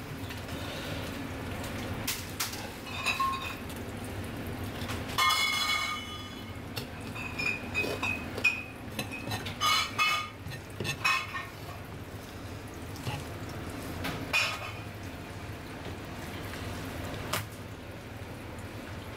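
Kitchen clatter: metal utensils and dishes clinking, with several short ringing clinks and sharp clicks scattered through the middle, over a steady low background hum.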